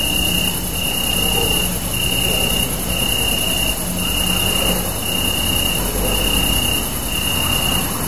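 Crickets chirping in even trills about once a second, over a low steady rumble.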